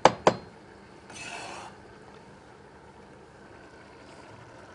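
Two chops of a cleaver on a wooden cutting board at the start, mincing carrot, followed about a second in by a brief scrape.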